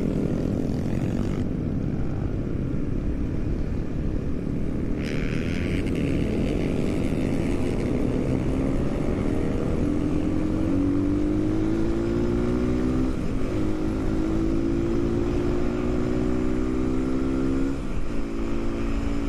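Supermoto motorcycle engine running under way, its pitch climbing slowly as it accelerates, then dropping sharply near the end before picking up again.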